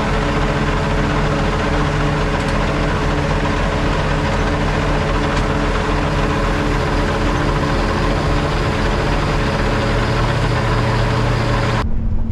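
A heavy engine idling steadily at close range, with a deeper low tone coming in about ten seconds in.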